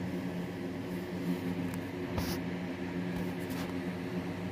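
Steady low mechanical hum of an indoor appliance in a small room, with one faint brief noise about two seconds in.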